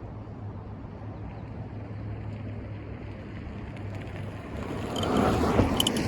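Tesla Model Y driving, with steady road and tyre noise. The noise swells into a louder rush about five seconds in, and a couple of sharp clicks come just before the end.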